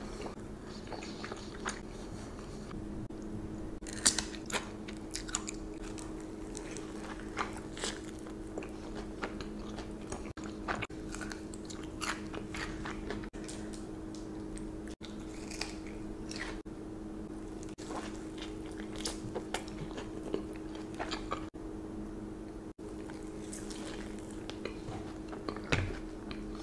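Close-miked eating: crunchy bites into a toasted sandwich and wet chewing, in many short crackles with the loudest crunch about four seconds in. A steady low hum runs underneath.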